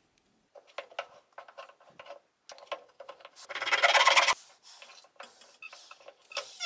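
Hand saw cutting into a small wooden block: one loud stretch of sawing lasting under a second, about three and a half seconds in. Before it come scattered light taps and scrapes of the wood being handled on the bench.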